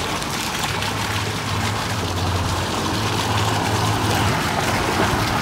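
Steady rush of running water with a low hum underneath.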